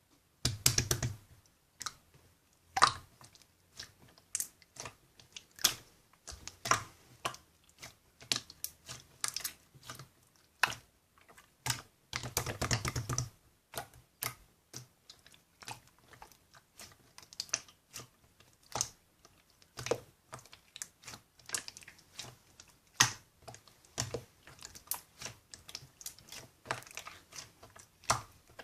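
Slime being squished and poked by hand: irregular sticky clicks and small crackling pops, with a couple of longer squishes, one near the start and one about halfway.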